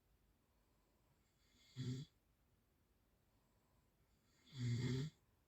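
A sleeping person snoring: two snores, a short one about two seconds in and a longer, louder one near the end, each a low buzz with breathy hiss.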